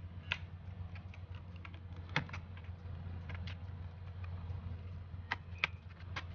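Plastic keyboard of a Lenovo Ideapad 100 laptop being pried up with a thin tool: a scattered series of sharp plastic clicks and snaps as its retaining clips release, a few of them louder.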